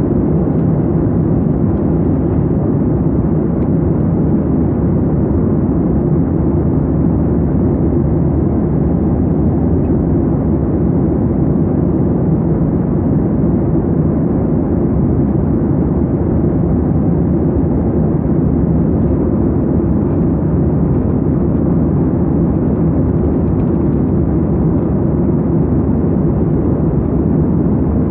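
Jet airliner cabin noise in cruise flight: a steady, deep rushing of airflow and engine noise that holds even throughout.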